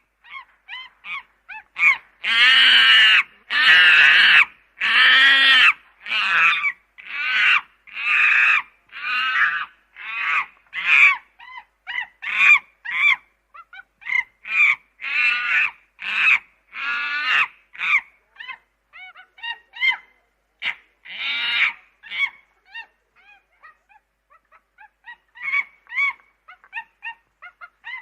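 Chimpanzee calls: a run of high, pitched calls about one a second, the loudest and fullest a few seconds in, then shorter calls that thin out and grow quieter before picking up again near the end.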